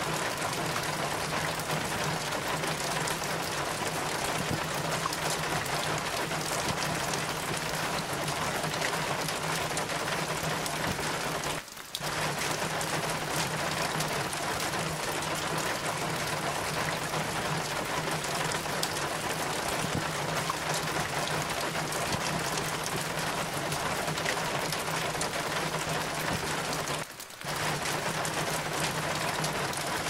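Steady rain falling, with water running down a metal rain chain: an even, unbroken hiss that drops out briefly twice, once near the middle and once near the end.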